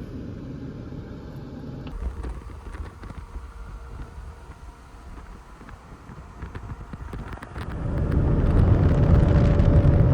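Road and wind noise of a pickup truck driving, faint at first and growing much louder about eight seconds in.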